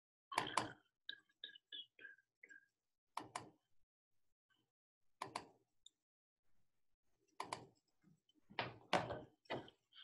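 Irregular knocks and bumps over a video-call microphone: five louder double knocks about two seconds apart, with lighter clicks between the first two, and the line dropping to dead silence between them.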